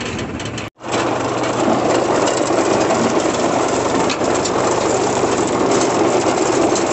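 Tractor engine running steadily under load, driving a Shaktiman-Grimme potato harvester whose conveyors and sorting webs keep up a dense, even mechanical noise. The sound drops out completely for a moment under a second in, then resumes at the same level.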